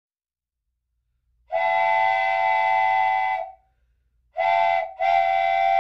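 Train horn blowing in a steady chord: one long blast of about two seconds, then a short blast and a longer one near the end.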